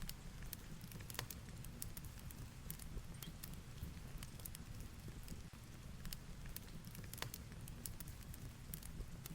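Fireplace crackling, with irregular sharp pops and snaps, over a steady low rumble of heavy rain and wind.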